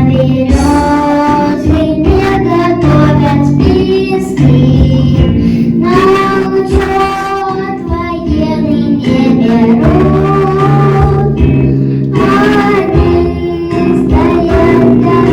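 A child singing a song with instrumental accompaniment: a sung melody over held bass notes and chords.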